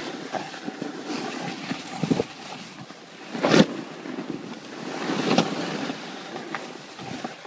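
Wind buffeting the microphone over the scrape and hiss of riding across snow, with a sharp knock about three and a half seconds in and another about two seconds later.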